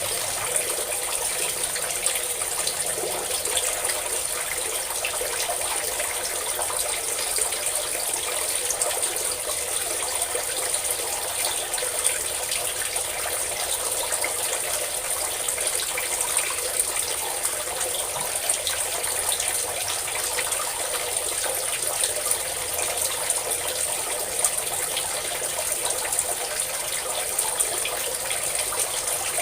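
Water pouring and splashing steadily in a continuous stream, an even rushing hiss with a bright high edge and no breaks.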